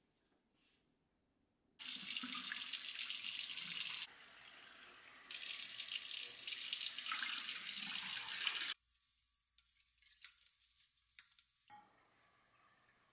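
Kitchen faucet running into a stainless steel bowl of rice to rinse it: a steady splashing stream that eases off briefly about four seconds in, comes back, and stops abruptly a few seconds later, leaving faint clicks.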